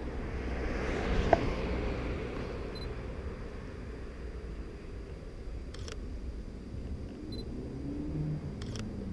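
Sony a7RII shutter firing twice, two short clicks about three seconds apart, over the low rumble of street traffic.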